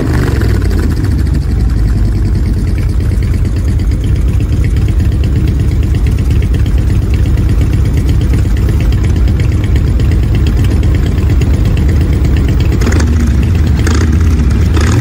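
Harley-Davidson V-twin motorcycle engine idling with its roaring, pulsing exhaust beat, briefly louder twice near the end.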